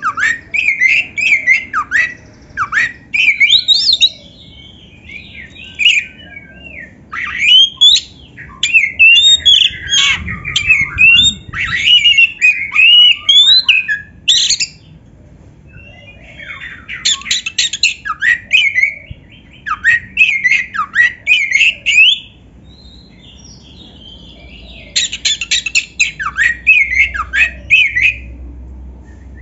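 Oriental magpie-robin (kacer) singing in full voice: bursts of rapid, varied phrases of gliding whistles and harsher notes, broken by short pauses of a second or two.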